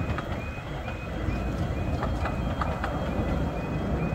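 Wagons of a 15-inch-gauge miniature railway freight train rolling over a level crossing: a low rumble with the wheels clicking over rail joints. Over it, a short electronic tone repeats about twice a second, typical of the crossing's warning alarm.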